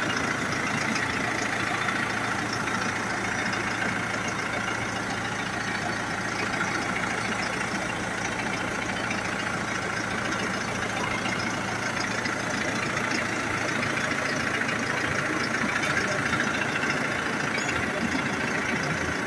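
SAME farm tractor's diesel engine idling steadily.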